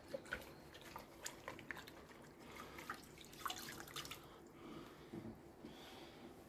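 Faint, irregular drips and ticks of water from a wet cleaning rag, thinning out after about four seconds.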